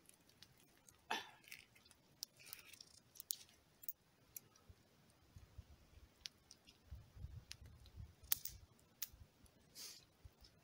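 Faint, sparse clicks and soft rustles as fire-roasted squirrel meat is pulled apart by hand and chewed, beside a small crackling wood campfire.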